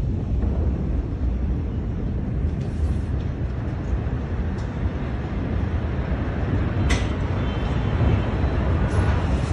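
Steady low rumble from the aftermath of a huge explosion, heard through a phone's microphone, with a few sharp clicks about seven seconds in and again near the end.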